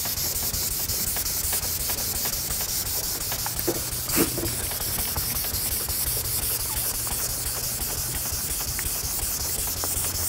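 Hand wet sanding of a car hood's paint with 1500-grit paper on a soft foam palm block: a steady rubbing hiss.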